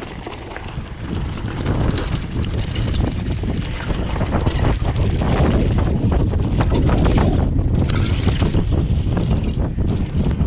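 Wind rushing over the microphone of a rider descending on a full-suspension downhill mountain bike, with the bike clattering over rough ground. The rush grows louder over the first two seconds, then holds.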